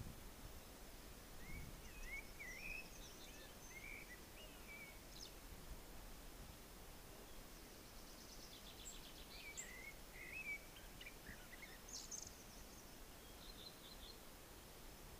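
Songbirds singing faintly outdoors: two bouts of quick twittering, warbling phrases with a short run of repeated high notes near the end, over a steady low background hiss.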